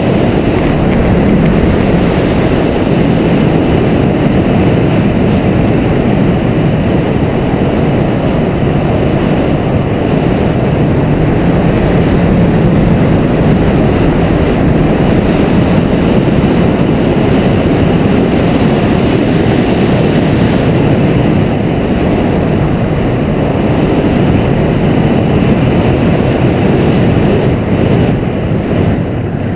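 Loud, steady wind noise: airflow rushing over the microphone of a camera mounted on a hang glider in flight.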